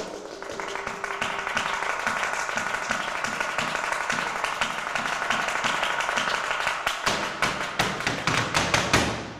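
Flamenco palmas: several people clapping hands in a fast, tight rhythm that grows louder and quicker, with low thumps joining near the end before it stops sharply.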